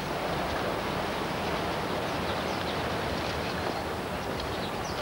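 Outdoor garden ambience: a steady hiss with faint bird chirps, a few short high calls coming more often near the end.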